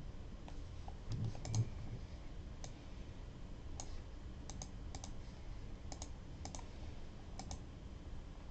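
Faint, irregular clicks of a computer mouse and keyboard, about a dozen spread out, with two low, soft thumps close together about a second in.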